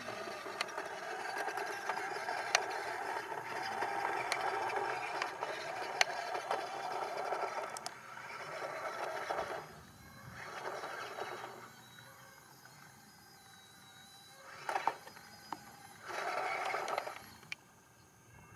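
Small electric motor and gearbox of a remote-control construction model whining, running steadily for about nine seconds, then starting and stopping in three short bursts, with a few sharp clicks.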